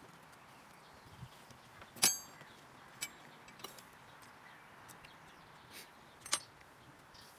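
Tableware clinking at a meal: one sharp ringing clink of metal or glass on a plate about two seconds in, then a few lighter clicks and taps, over a steady faint outdoor hiss.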